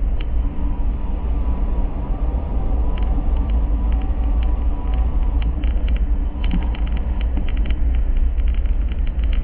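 Steady low rumble of road traffic, with a few faint clicks in the second half.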